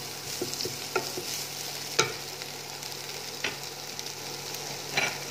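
Chicken, onion and bell pepper sizzling steadily in a wok while being stir-fried with a wooden spatula, which knocks against the pan a few times, most sharply about two seconds in and near the end.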